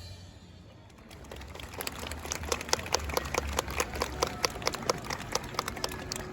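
Scattered audience hand clapping starting about a second and a half in and slowly building after a band number ends: irregular, sharp claps, several a second.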